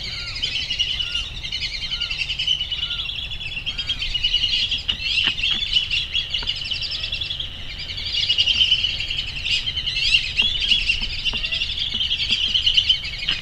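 A flock of black-bellied whistling ducks calling: many overlapping high, chattering whistles going on without a break.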